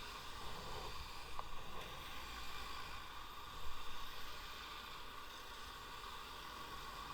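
Steady wind and tyre noise of an electric bicycle being ridden, with a couple of brief louder bumps, the strongest about three and a half seconds in.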